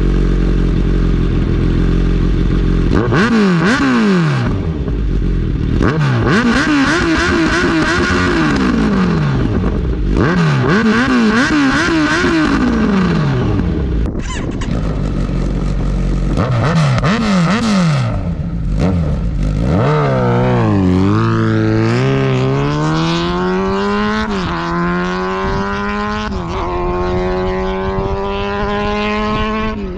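Kawasaki Ninja 1000SX's inline-four through a baffle-out Black Widow 4-into-1 full decat exhaust: idling, then revved hard several times, each rev rising and falling back to idle. About two-thirds of the way in it pulls away and accelerates, the pitch climbing with short dips at the upshifts before settling into a steady cruise.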